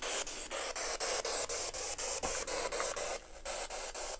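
Radio static hissing from a handheld spirit-box radio, chopped into even pulses several times a second as it sweeps.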